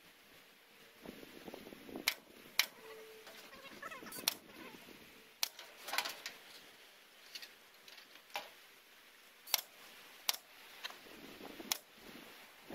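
Staple gun driving staples through chicken wire into a wooden coop frame: about ten sharp snaps at irregular gaps of roughly a second.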